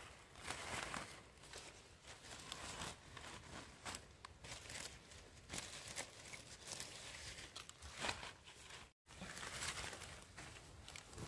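Irregular rustling and crinkling with many small snaps and crackles, broken by a brief dropout to silence about nine seconds in.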